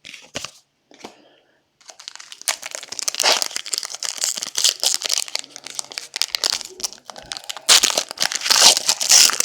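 Plastic trading-card pack wrappers crinkling and tearing as packs are opened and handled, with a few light clicks at first and dense crinkling from about two seconds in, loudest near the end.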